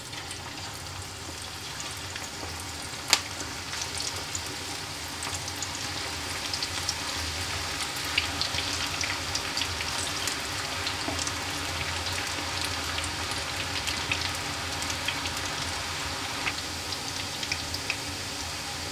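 Lachha pakoras of sliced onion in gram-flour batter frying in hot ghee, a steady sizzle with small crackles that grows a little as more batter goes in by hand. One sharp tick about three seconds in.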